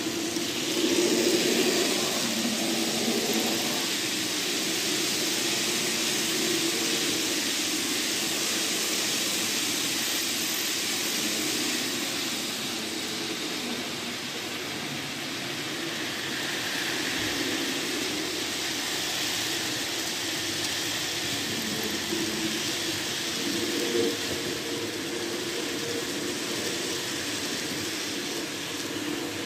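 N gauge model freight train running on the layout: a steady whirring of the small locomotive motor with the hiss of wheels rolling on the rails.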